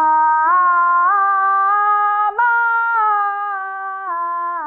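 A woman singing a five-note scale up and back down on one held "ma" vowel, stepping up to the top note about halfway through and fading on the way down. It is a vocal warm-up sung with the volume pushed up as the pitch rises, the habit the coach demonstrates as a mistake.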